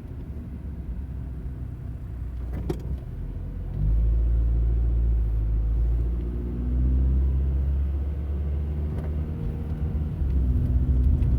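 Cabin noise of a 1995 Honda Accord driving at low speed: a steady low engine and road rumble, with one sharp click about three seconds in. About four seconds in the engine pulls harder and the rumble grows louder.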